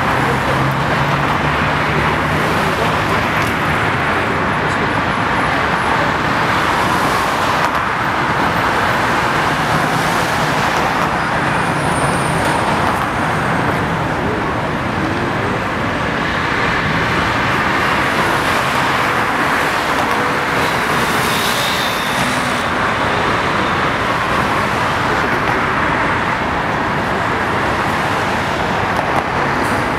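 Steady city traffic noise: a continuous, even wash of passing cars with no single vehicle standing out.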